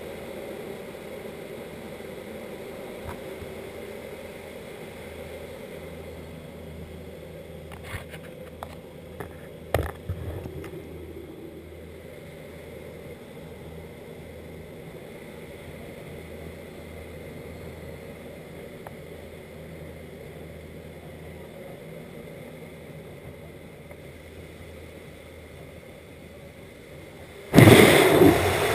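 Steady drone of a jump plane's engines heard inside the cabin with the rear door open, with a few knocks and clicks about eight to ten seconds in. Near the end a sudden loud rush of freefall wind on the helmet-camera microphone as the skydiver exits the plane.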